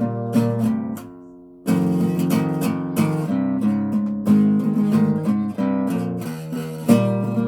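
Acoustic guitar being strummed, playing chords, with a short break about a second in before the strumming starts again.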